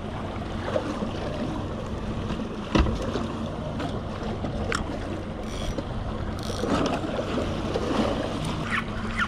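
Yamaha 115 outboard motor idling steadily under wind and water noise, with one sharp knock about three seconds in.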